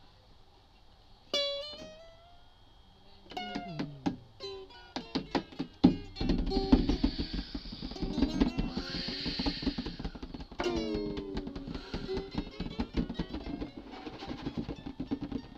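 Guitar music: a few single plucked notes ring out at first, then a busier passage of picked notes from about six seconds in, stopping near the end.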